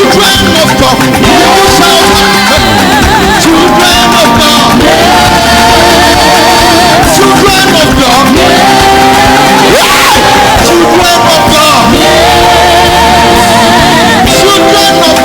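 Church choir singing over a live band in a hall, with sustained group vocal lines and steady percussion.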